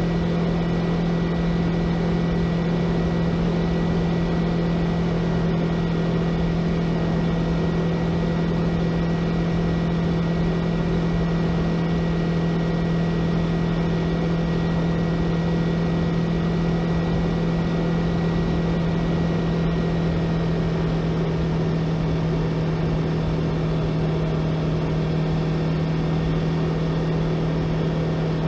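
Yamaha YZF-R3's parallel-twin engine running at a steady cruising speed, holding one even pitch, with wind and road noise.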